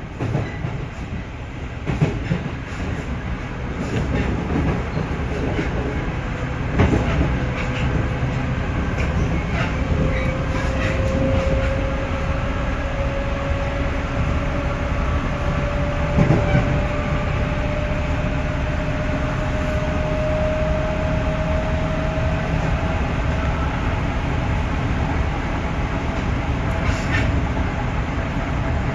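Running sound inside a JR 311 series electric train: a steady rumble with wheels clicking over rail joints. A thin whine rises slowly in pitch from about ten seconds in until past twenty seconds.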